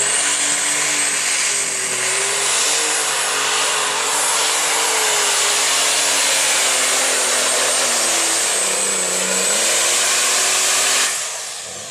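AGCO Open Super Stock pulling tractor running flat out while hauling the weight sled, with a high whistle over the engine and its pitch dipping slightly near the end. The sound drops off sharply about eleven seconds in.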